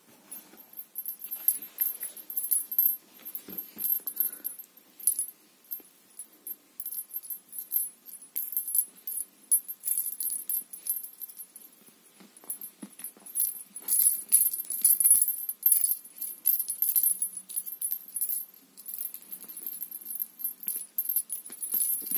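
Small bell inside a feather cat-teaser wand jingling in irregular bursts as a cat bats, grabs and shakes it, with soft rustling. The jingling is busiest a little past the middle and again near the end.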